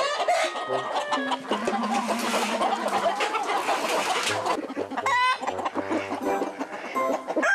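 Flock of chickens, mostly roosters, calling in many short overlapping clucks and squawks as they crowd a feed trough.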